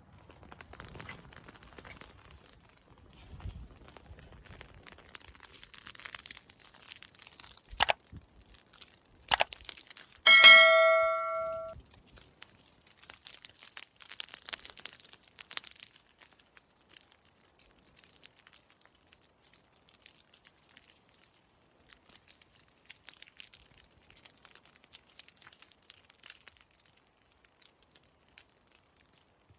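Burning straw and leaves crackling with a steady patter of small pops and snaps, two sharper cracks around the eighth and ninth second. About ten seconds in, a single loud metallic ring, like a struck bell, sounds and dies away over about a second and a half.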